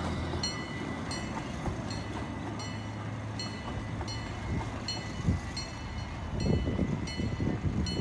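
Miniature zoo ride train running slowly along its track toward the station, its locomotive giving a steady low hum, with a high ringing strike repeating about every two-thirds of a second.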